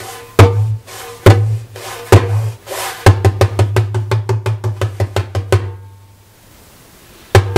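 Clay darbuka played with fingertip Doum strokes, each with a deep low ring: three single strokes about a second apart, then a fast run of alternating index and middle finger strokes for about two and a half seconds. The run stops, and strokes start again near the end.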